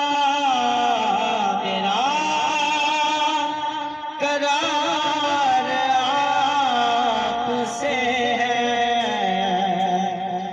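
A man singing a naat, an Urdu devotional song, into a handheld microphone, drawing out long held notes with wavering, ornamented turns in pitch rather than clear words.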